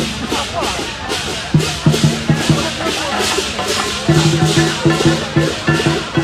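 Music with a fast, even percussion beat and low repeated notes, with voices of people around.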